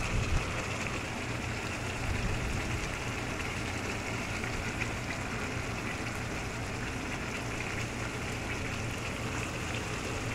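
Tomato sauce with meatballs simmering in a pan, a steady bubbling crackle, over a low steady hum.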